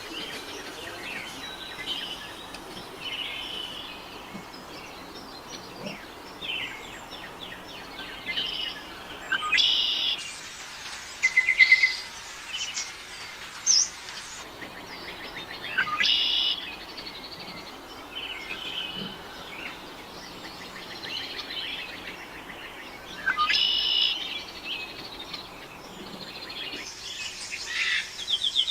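Several birds chirping and calling over a steady background hiss. A louder call stands out every six or seven seconds.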